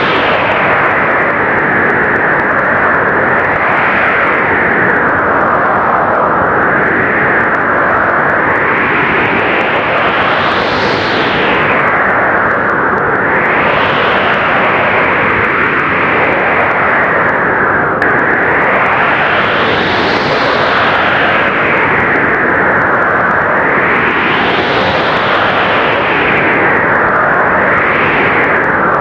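Blizzard wind blowing hard and steadily, swelling into gusts and easing again every few seconds.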